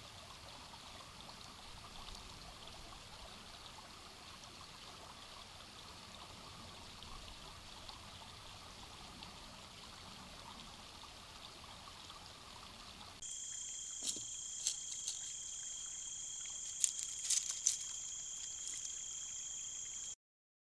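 Shallow creek flowing over rocks, a steady trickling rush. About thirteen seconds in it cuts to a steady high-pitched insect chorus, with a few sharp clicks.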